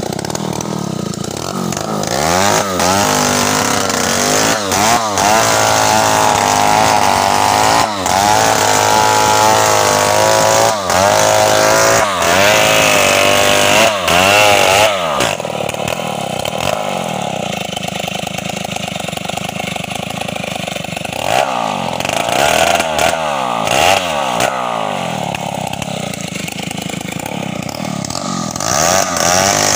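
Two-stroke chainsaw cutting through a felled tree trunk, the engine held at high revs under load with repeated rises and dips for about the first half. It then drops to a lower speed and is revved up in short blips between idling, rising again near the end.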